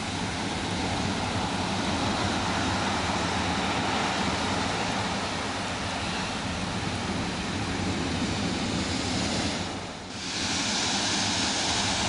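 Large storm waves breaking on the shore: a dense, steady rush of surf and spray. About ten seconds in it dips briefly, then comes back hissier.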